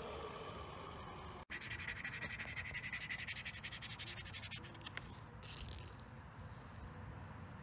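A plastic card rubbed back and forth in quick strokes over the transfer tape of a vinyl decal on car paint, pressing the lettering down, for about two and a half seconds; then a brief rustle of paper.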